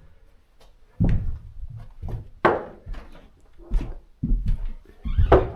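About five irregular knocks and thuds on hard surfaces, a second or so apart, each with a short echo of the room.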